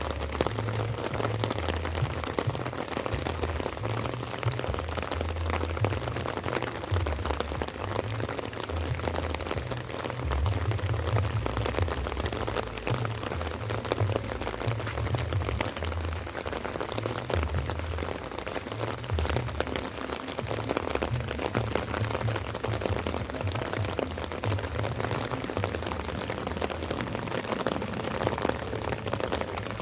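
Light rain falling steadily, a dense patter of drops, with an uneven low rumble underneath.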